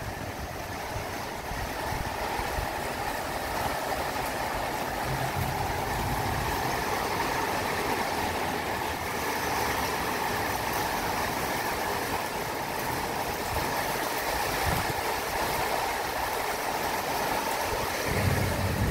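Steady rain falling on a parking lot and its carport roofs, an even hiss that grows a little louder a couple of seconds in.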